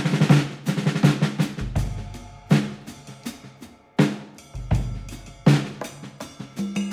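Drum-heavy background music: a drum kit striking a heavy beat about every second and a half over deep bass notes.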